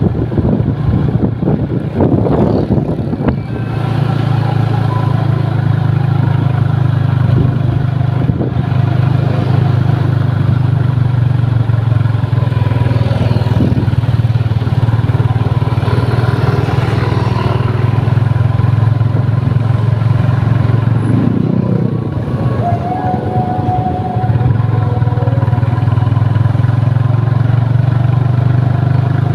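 Large vehicle engines running with a steady low drone amid road traffic, the drone easing off for a couple of seconds about three quarters of the way through.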